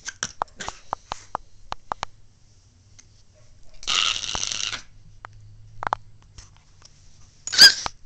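A 5-month-old baby hiccuping: short, sudden hics and breathy squeaks, the loudest one near the end, with a run of quick faint clicks at the start.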